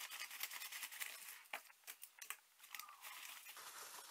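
Scissors snipping through a padded kraft-paper mailer, a quick run of crisp cuts with the paper crinkling. Near the end the stiff envelope paper rustles as it is pulled open.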